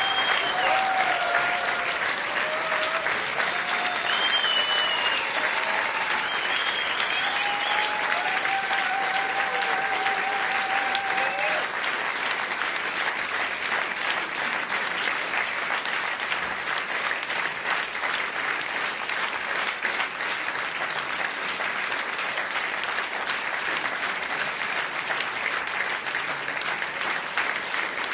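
Theatre audience applauding at length, a dense, even clapping, with a few cheers over it during roughly the first twelve seconds.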